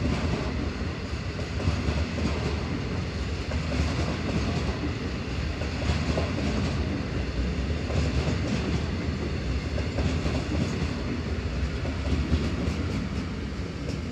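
Freight train of loaded ballast wagons rolling past below: a steady low rumble with scattered wheel clacks. The sound eases slightly at the very end as the last vehicle, a class 66 locomotive hauled dead with its engine off, passes under.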